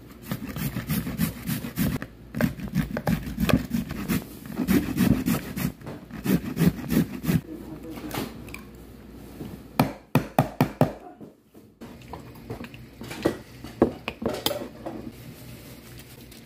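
A carrot grated by hand on a flat stainless-steel grater over a plastic bowl: quick, steady rasping strokes, several a second. After a short break in the second half, a few sharp clicks and knocks.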